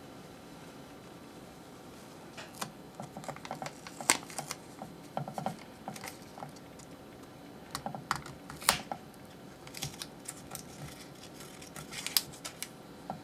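Adhesive tape being handled, peeled and pressed onto the rim of stainless steel bowls: irregular crackles and clicks, with a few sharper snaps.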